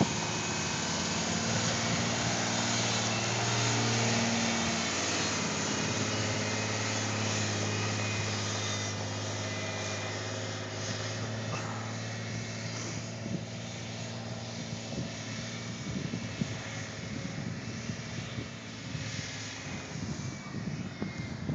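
Ford pickup truck's engine running, a steady low hum that fades as the truck moves away down the driveway. Gusts of wind hit the microphone in the second half.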